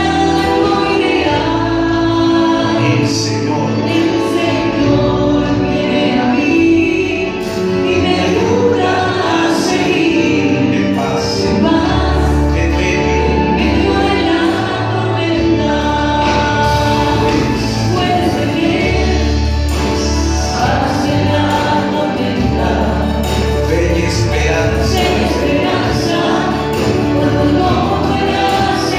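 Christian worship song played over a PA system: a group of voices singing over a band with a strong bass.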